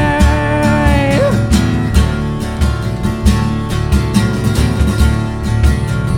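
Semi-acoustic rock band playing: a sung note with vibrato is held and ends about a second in. After it, acoustic guitar strumming with a steady beat carries on.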